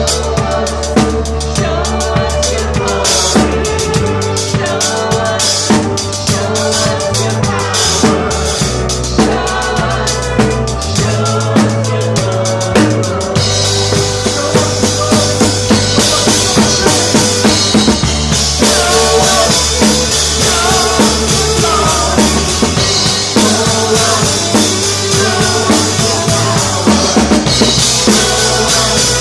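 Live church worship band playing an upbeat song, a full drum kit with kick and snare driving a steady beat under sustained keys and guitar. About halfway through, the cymbals open up and the sound grows brighter and fuller.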